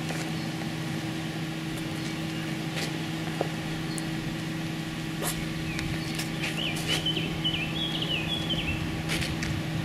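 Steady low hum with a few scattered light clicks; about six seconds in, a small bird sings a quick series of wavering high chirps lasting a couple of seconds.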